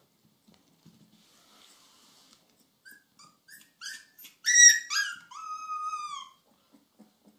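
Husky puppy giving a string of short, high-pitched yips that grow louder, then one longer howl that dips in pitch and holds steady before stopping.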